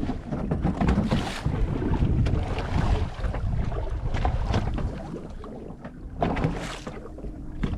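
Wind buffeting the microphone aboard a fishing boat at sea, with rough low rumbling and a few louder rushing surges about a second in, around four seconds and near six and a half seconds.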